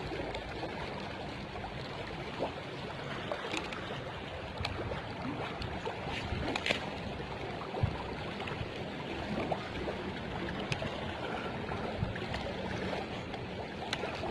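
Fast-flowing river rushing steadily, swollen after a flood, with a few light clicks scattered through it.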